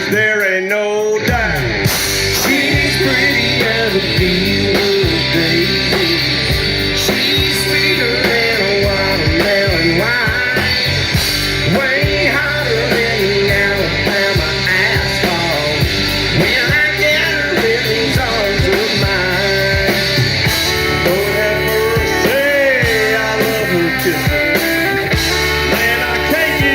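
Country rock song playing loudly and steadily: electric guitar and drums, with a singing voice over them.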